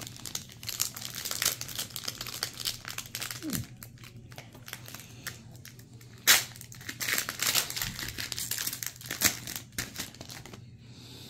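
Foil wrapper of a Panini Prizm trading-card pack crinkling and tearing as it is handled and opened, in irregular crackles with one sharp, louder crackle about six seconds in.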